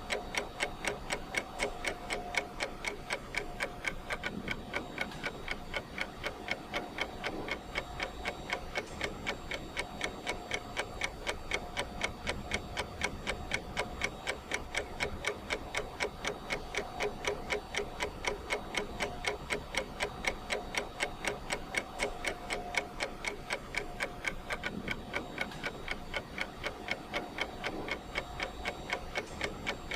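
Clock ticking steadily, about two even ticks a second, as a countdown timer's ticking sound.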